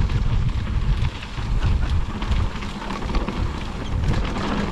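Mountain bike riding down a dirt trail: low wind buffeting on the helmet or bike camera's microphone, with tyres crackling over loose dirt and rocks and the bike rattling in many small clicks.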